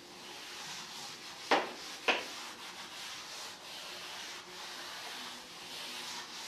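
Chalkboard duster rubbed back and forth across a blackboard, wiping off chalk writing: a steady scraping rustle, broken by two sharp knocks about a second and a half and two seconds in.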